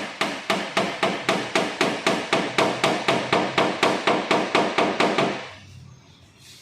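Hammer rapidly tapping a car body's sheet-metal panel, about four to five even blows a second for some five seconds and then stopping. The panel is being knocked in slightly so the body filler over it can stay thin.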